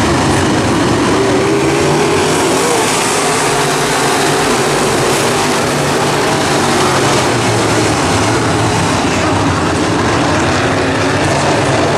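Race car engines running at speed on the track: a loud, steady drone whose pitch wavers up and down.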